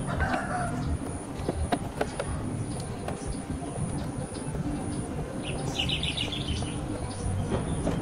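A few sharp clicks and taps of a socket wrench and ignition-coil parts being refitted on the engine, over a steady low background rumble. A bird gives a short, rapid high trill about six seconds in.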